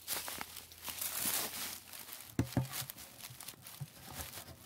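Footsteps crunching and rustling through dry fallen leaves, with a couple of short knocks about halfway through.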